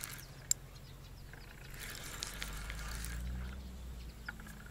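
Faint clicks and ticks from a spinning reel being wound, with one sharper click about half a second in. A low hum swells up past the middle and fades near the end.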